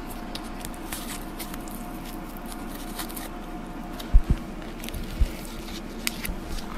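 Light rustling and ticking of paper and foam flowers and card being handled on a tabletop, with two soft low thumps about four and five seconds in, over a steady background hum.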